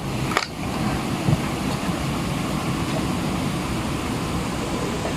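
Steady background whir of an air conditioner, with a short click about half a second in.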